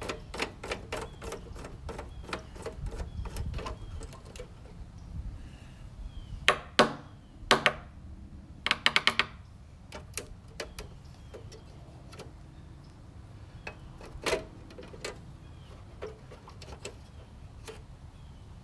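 Hands working on a truck's instrument cluster: scattered light clicks and taps of plastic, the printed circuit and small tools. They come quickly at first, with a few louder clicks partway through and only occasional ones later, over a steady low rumble.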